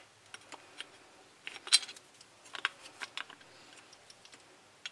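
Small sharp clicks and clinks of a screwdriver tightening the clamp screw on an angle grinder's metal wheel guard, mixed with handling of the grinder. The clicks are scattered and irregular, with the loudest cluster about a second and a half in.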